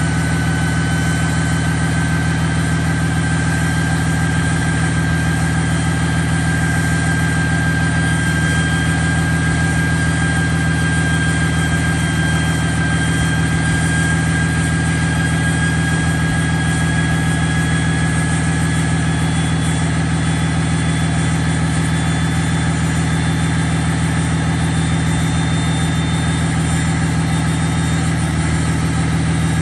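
6.7 Cummins turbo-diesel idling after a cold start with the exhaust brake engaged, heard at the tailpipe through a race-pipe midpipe with stock downpipe and tailpipe. A steady, deep exhaust drone carries a thin high whine that slowly climbs in pitch.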